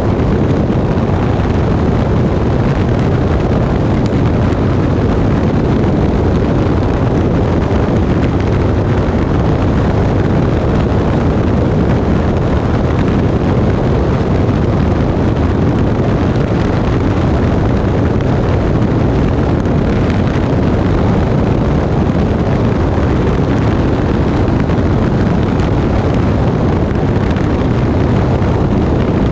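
Loud, steady rush of airflow buffeting a microphone mounted under an aircraft in flight, mixed with the aircraft's running noise.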